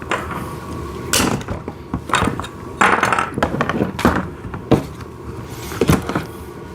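Plastic parts of a ride-on toy backhoe's canopy being handled and fitted together: an irregular series of knocks, clicks and rattles, about half a dozen sharp ones.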